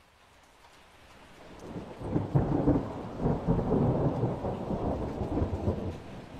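Thunder with rain: near silence at first, then the thunder builds from about a second in, stays loud for a few seconds and eases off near the end, with rain hissing underneath.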